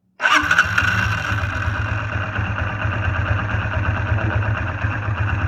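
Motorcycle engine starting suddenly and settling into a steady idle, heard through a screwdriver pressed against the engine with an earphone at its tip used as a microphone, so the engine's internal running noise comes through strong and close.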